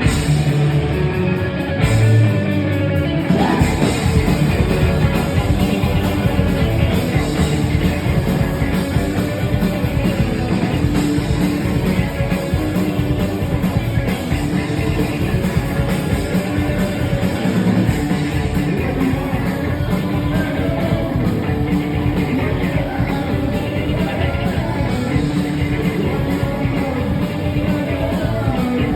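A live punk rock band playing loud, with the full band coming in about three seconds in after a thinner guitar opening.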